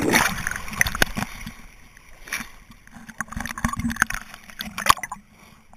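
Lake water splashing and sloshing against a GoPro's waterproof housing at the surface, with scattered sharp ticks and pops of droplets. Loudest at the start, then lighter splashes.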